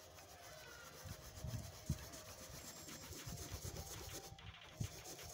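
Flour being rubbed through a sieve with the bottom of a plastic cup: a soft, irregular scratching of the cup against the mesh, with a few light knocks.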